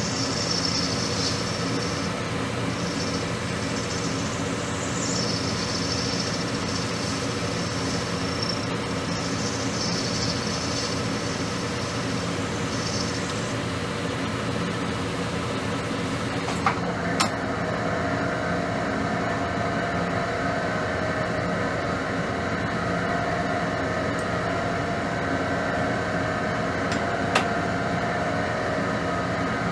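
Metal lathe running steadily with a high-pitched, wavering cutting sound from the tool on the spinning part for the first dozen seconds or so. About 17 seconds in, two sharp clicks come and the high sound stops, leaving the machine's steady hum with a changed tone, and one more click comes near the end.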